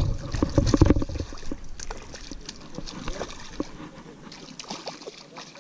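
Water splashing with knocks and a deep rumble of handling noise through the first second or so, thinning out into scattered small splashes and clicks that fade away.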